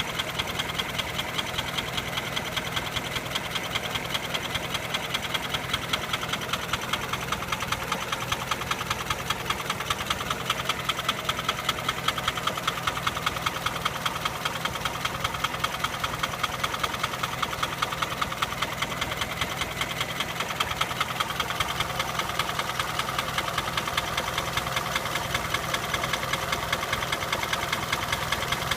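Nissan Sunny engine running steadily with a regular, repeating knock whose cause the owner cannot pin down.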